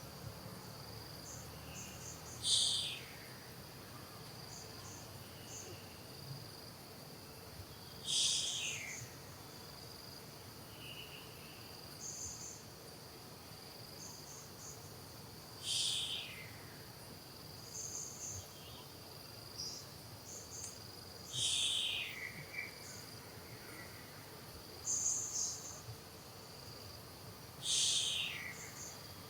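Insects chirping steadily, with a loud, high, falling call repeated five times, about every six seconds.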